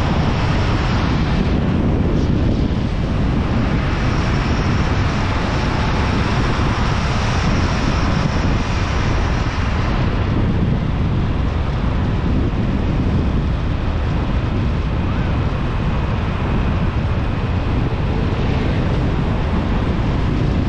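Steady rush of wind on the microphone over the tyre and road noise of a car driving at highway speed.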